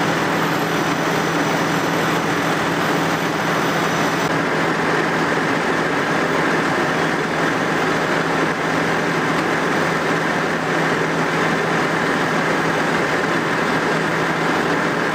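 Fire engine's diesel engine running steadily with a constant low hum, powering its water pump for the hose lines.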